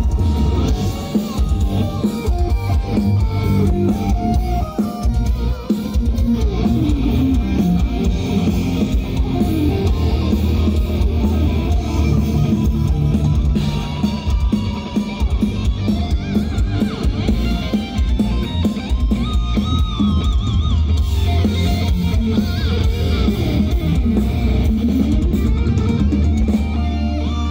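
Live folk metal band playing loud: distorted electric guitars over a drum kit, heard from within the crowd.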